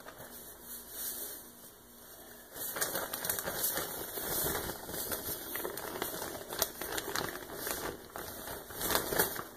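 Styrofoam beads pattering and crackling as slime is pushed into them: a dense run of many small ticks that starts about two and a half seconds in.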